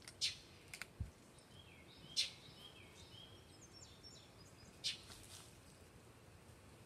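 Quiet outdoor ambience with faint bird chirps, and a few short sharp clicks now and then, the loudest about two seconds in.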